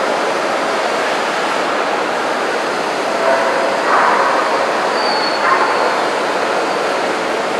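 Steady hubbub of a large indoor crowd at a dog show, with one short dog bark about four seconds in.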